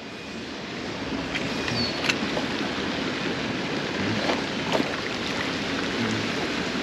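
Steady rush of flowing stream water, with a few scattered sharp ticks over it.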